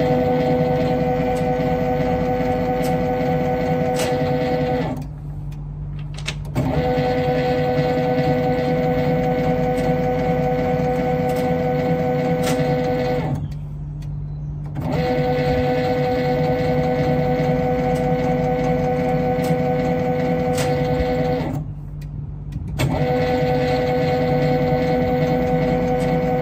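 Motor drive unit (HM SHM-D) of a power transformer's on-load tap changer running in stretches of about six seconds as it steps the tap changer from one position to the next, with its steady motor hum stopping briefly three times between tap changes.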